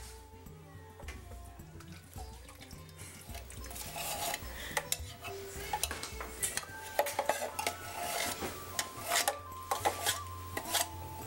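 Background music, with clinks and scrapes of a metal can and a knife against a plastic blender jar. The clatter grows busier from about four seconds in as a knife scrapes the last of the thick milk out of the tin can.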